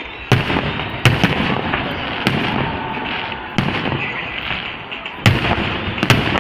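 Aerial fireworks bursting overhead: about seven sharp bangs at uneven intervals, two of them close together, over a continuous rush of noise.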